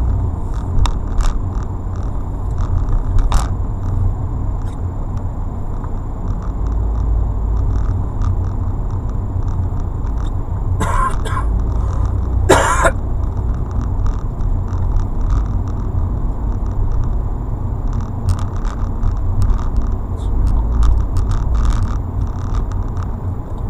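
Car cabin noise while driving slowly in town: a steady low engine and road rumble, with scattered small clicks and knocks. Two short, louder sounds come about 11 and 12.5 seconds in, and a faint steady high tone runs underneath.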